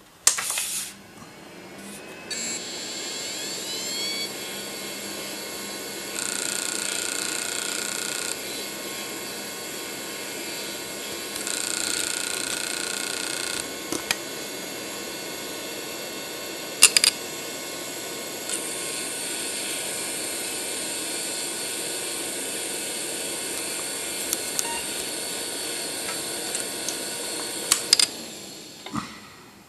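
Conner CP2124 2.5-inch hard drive, lid off, spinning up with a rising whine, then running with a steady whine. Twice it buzzes louder for about two seconds as it tries to seek with its stuck head arm, the fault that hangs the system. A few sharp clicks come about two-thirds of the way in, and the sound dies away near the end.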